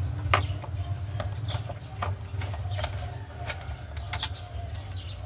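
Hand tools clicking and clinking against metal, irregular sharp clicks as bolts are worked on the engine's timing cover, over a steady low hum.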